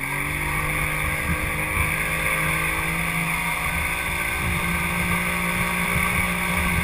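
Motorboat engine picking up speed, its pitch rising for the first moment and then holding steady at speed. The wake rushes and churns under it, with low gusts of wind on the microphone.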